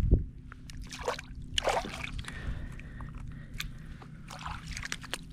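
Shallow bay water splashing and sloshing in short bursts, over a steady low hum, with a couple of low thumps right at the start.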